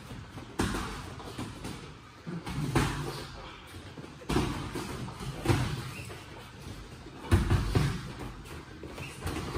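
Boxing gloves landing during sparring: irregular sharp thuds and slaps a second or two apart, with a quick cluster of harder hits about seven seconds in.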